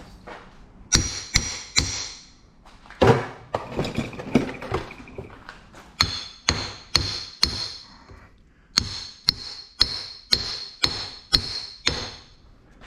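Hammer striking a steel transformer core again and again to knock pieces out of it: sharp metallic blows with a ringing tone, in runs of several strikes about two a second.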